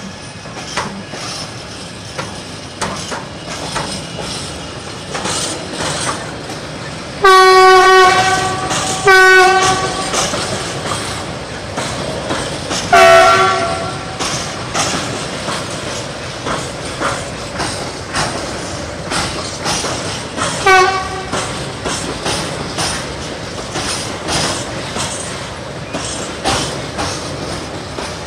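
Freight train of tank wagons hauled by Siemens Smartron electric locomotives rolling past, its wheels clicking rhythmically over the rail joints. A locomotive horn sounds four times: two blasts of about a second each, a third soon after, and a short one past the middle. The horn blasts are the loudest sounds.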